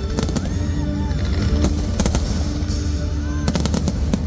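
Aerial fireworks shells bursting in a rapid series of sharp bangs, with a dense volley of quick bangs about three and a half seconds in.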